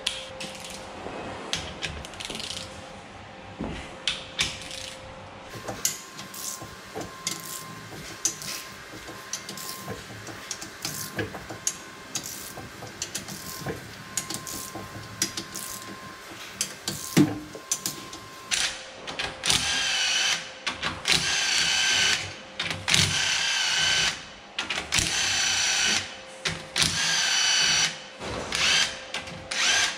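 Torque plate being unbolted from a freshly honed engine block: ratchet clicks and metal clinks, then, from about two-thirds of the way in, a cordless power tool whirring in repeated short bursts as it spins the bolts out.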